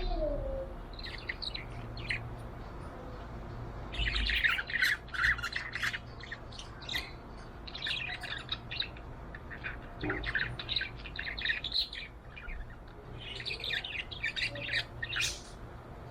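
Budgerigar chirping and warbling in bursts of rapid, busy chirps a second or two long, with short pauses between them, over a low steady hum.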